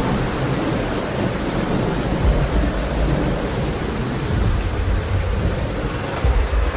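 Storm noise: a steady hiss of heavy rain over a low rumble that swells and fades.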